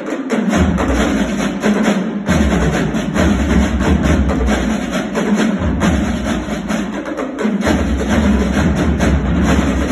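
Marching drumline, mostly snare drums, playing a fast, dense rhythm in unison. A deep low pulse under the drumming drops out for a moment about two seconds in and again for a longer stretch around six to seven seconds.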